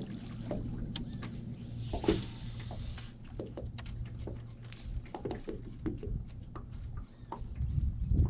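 Bow-mounted electric trolling motor humming steadily, stopping about seven and a half seconds in, with light clicks and water lapping at the boat's hull. A short whoosh comes about two seconds in.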